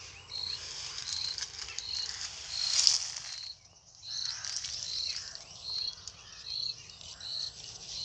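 A cricket chirps in short high pulses at one steady pitch, about three every two seconds. Rustling and handling noise runs underneath, loudest about three seconds in.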